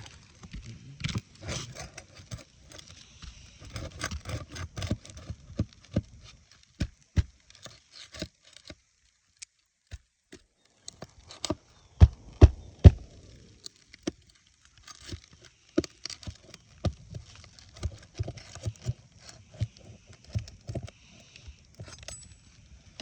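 Hand tools knocking and scraping on asphalt roof shingles, in irregular taps with a short quiet spell near the middle and a cluster of louder knocks just after it.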